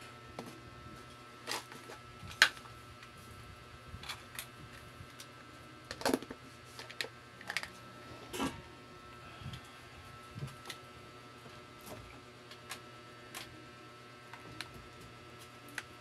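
Irregular clicks and light knocks of small hard objects being handled, the sharpest a single click about two and a half seconds in, with a faint steady hum underneath.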